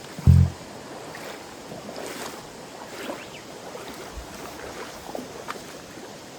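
Steady rush of a mountain stream running slightly high, with some wind on the microphone. A short, loud low thump comes just after the start.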